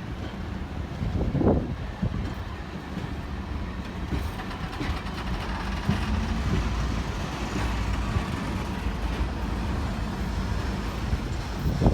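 Train running, a steady low rumble with a brief louder swell about a second and a half in.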